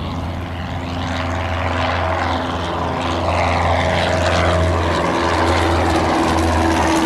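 Light propeller airplane's piston engine running, growing steadily louder as it comes closer.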